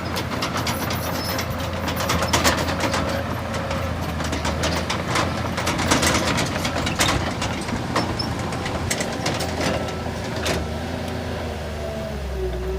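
Heavy diesel earthmoving machinery running steadily, with frequent irregular clanks and knocks over the engine's low hum.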